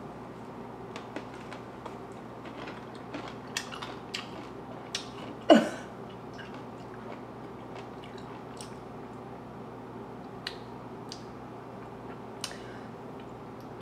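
Chewing a bite of a large Best Maid dill pickle: soft crunches and mouth clicks here and there over a faint steady hum. About five and a half seconds in there is one brief vocal sound that falls in pitch.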